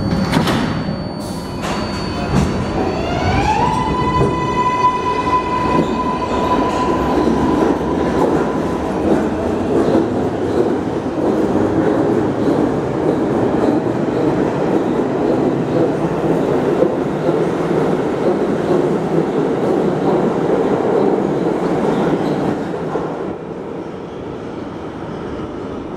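R142A subway train pulling out of the station. A couple of knocks as the doors shut, then the motors' electric whine rises in pitch and holds one steady tone for several seconds while the cars rumble past on the rails. The rumble drops off near the end as the train leaves.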